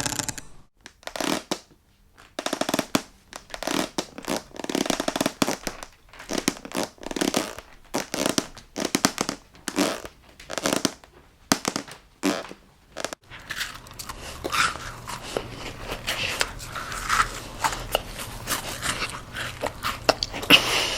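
Creaking wooden parquet floorboards, one drawn-out creak about every second. About two-thirds of the way through this gives way to a person eating cake close to the microphone: soft chewing and crunching over a low hum.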